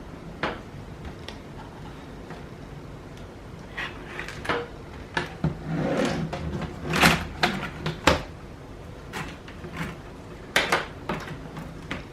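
Scattered plastic clicks and knocks from handling an opened laptop while its keyboard ribbon-cable connector is worked loose, busiest and loudest around the middle.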